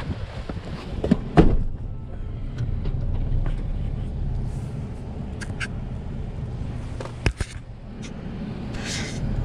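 Nissan pickup truck's engine idling steadily, heard from inside the cab, with a loud door slam about a second and a half in and a sharp click a little after seven seconds.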